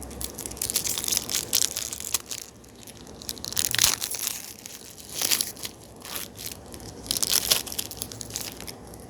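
Trading-card pack wrapper crinkling and tearing open, in several bursts of crackling.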